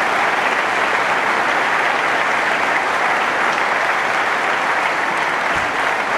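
Audience applauding steadily, many hands clapping at once in a dense, even patter.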